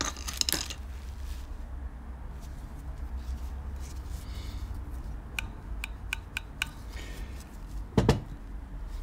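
Bench handling of a Bing carburettor being reassembled: a few light clicks about five and a half to six and a half seconds in, then a single louder knock about eight seconds in.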